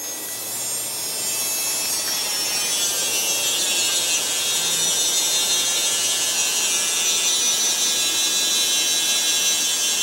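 Battery-powered toy crane's electric winch motor and plastic gears whining steadily as it reels in the cable, hoisting a toy bulldozer. The whine drops a little in pitch a couple of seconds in, then holds steady.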